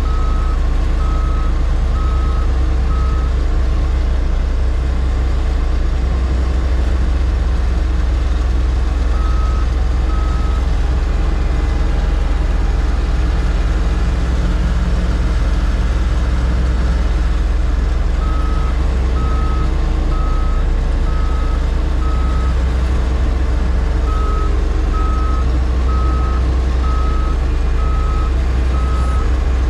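Heavy diesel equipment running steadily, with its backup alarm beeping in spells, about one and a half beeps a second, as it reverses.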